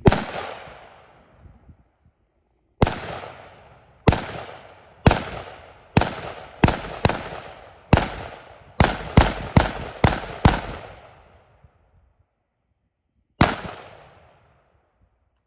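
A firearm fired fourteen times in single shots. The shots come about a second apart, quicken to about two a second between the seventh and eleventh seconds, then one last shot follows after a pause of about three seconds. Each shot rings out and fades over about a second.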